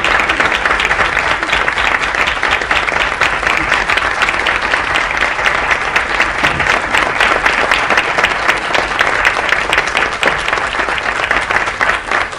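Studio audience applauding, many hands clapping at once.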